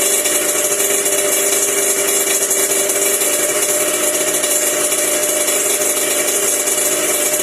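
Yamaha RD125LC mk1's single-cylinder, liquid-cooled two-stroke engine running steadily on its first start after a top-end rebuild: a fresh +0.50 mm rebore with a new piston and rings.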